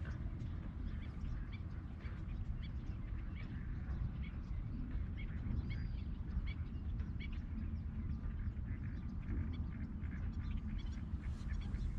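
Ducks quacking and birds chirping, in short scattered calls throughout, over a steady low rumble.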